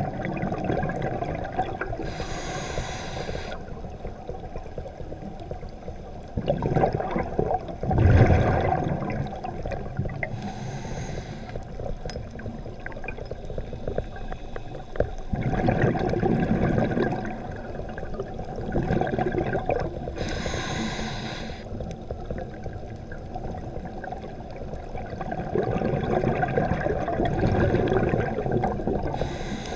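Scuba diver breathing through a regulator underwater: three short hissing inhalations, each followed a few seconds later by a longer, louder gurgle of exhaled bubbles.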